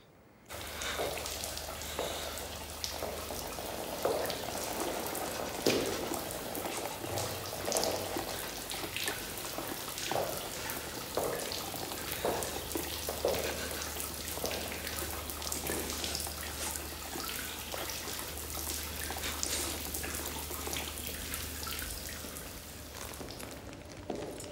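Steady patter of falling water, with many small drops and splashes over a low hum; it starts suddenly about half a second in.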